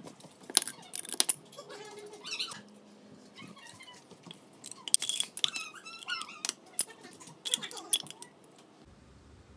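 Glass Mason jar and its metal lid clinking and knocking as they are handled and set down on a paper towel on the counter, fresh out of the sterilizing water. There are a series of sharp clinks, bunched about half a second in, around a second in, about five seconds in and near the end.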